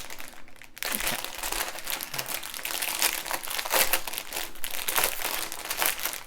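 Plastic bags of square diamond-painting drills crinkling and rustling as they are handled and pulled out, with a short lull about half a second in.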